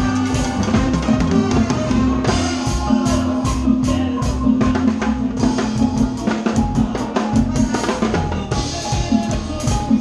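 Live band playing, with the drum kit loud and close over the rest of the band, as heard in the stage monitor mix.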